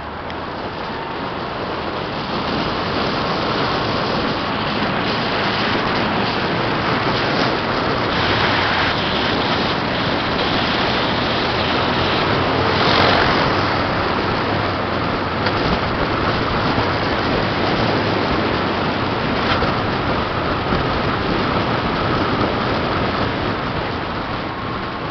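Renault 19 Cabrio on the move: a steady rush of wind and road noise from inside the car, growing louder over the first few seconds.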